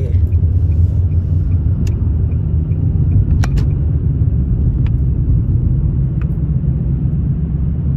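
A car being driven, heard from inside the cabin: a steady low rumble of engine and road noise, with a few light clicks.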